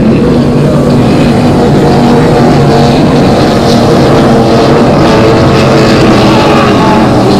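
Offshore racing powerboat engines running, a loud, steady drone that holds throughout.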